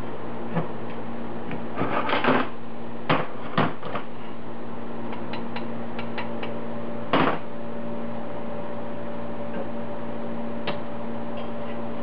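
Locking pliers being adjusted and clamped onto a stainless steel sheet-metal heat shield: scattered metallic clicks and clanks, the loudest about seven seconds in. A steady hum and hiss sits underneath.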